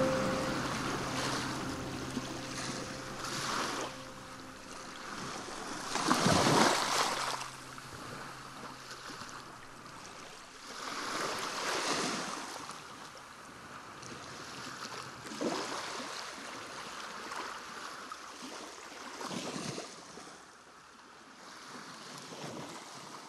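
Sea waves washing onto a shore, each wave surging in and ebbing away every four to six seconds, the loudest wash about six seconds in. A little music fades out in the first few seconds.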